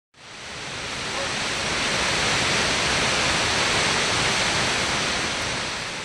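Steady rush of the Ulaan Tsutgalan (Red Waterfall), a waterfall about 24 m high on the upper Orkhon River, pouring into its pool. It fades in over the first couple of seconds and begins to fade near the end.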